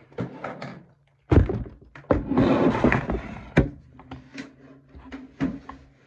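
A clear plastic organizer drawer full of toys is handled and set down on a table: a heavy thunk about a second in, a clatter of the contents, then another sharp knock, with smaller knocks after.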